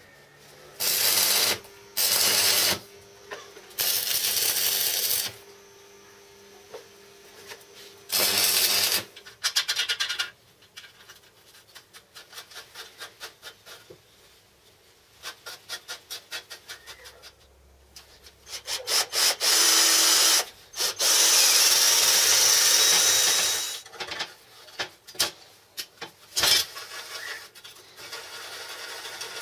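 Hand-tool work on a steel vise assembly: loud bursts of metal scraping and rubbing, the longest a few seconds from the end, with runs of quick, regular metal clicks in the middle.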